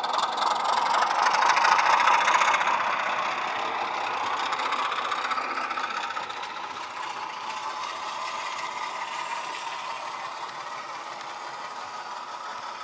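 Bachmann Class 24 model diesel locomotive running with its ESU LokSound 5 sound decoder, playing a Class 24 diesel engine sound through a small onboard speaker, together with the rattle of the model train running over the track. It is loudest about two seconds in, then settles steadier and quieter.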